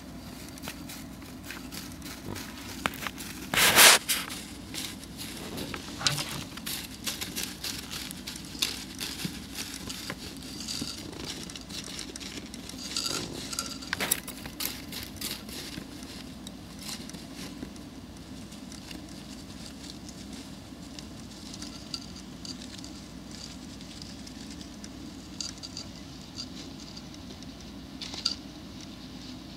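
Syrian hamster rustling and digging through shredded white bedding: light crackling rustles, busier in the first half, with a louder scrabbling burst about four seconds in.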